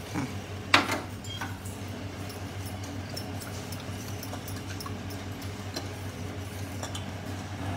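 A metal spoon stirring milk in a steel pot, with one sharp clink against the pot a little under a second in and faint light taps after, over a steady low hum.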